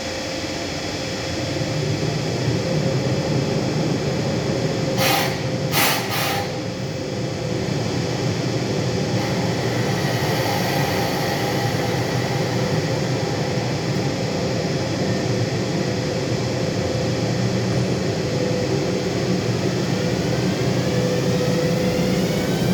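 ÖBB class 1144 electric locomotive's cooling blowers running loud and steady, the noise behind its nickname 'Alpine vacuum cleaner'. Three short hisses come about five to six and a half seconds in, and a rising whine sets in near the end.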